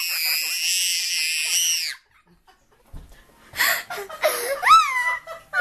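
A toddler's long, high-pitched shriek with an open mouth, his reaction to spicy gravy. It cuts off about two seconds in, and after a short pause more high squealing starts, with sharp rising-and-falling swoops near the end.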